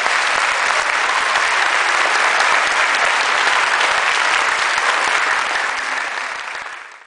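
Audience applauding: dense, steady clapping from many hands that tapers off near the end.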